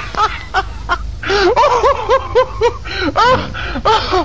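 A person laughing in a long run of short, high-pitched chuckles, each rising and falling in pitch, with a brief break about a second in.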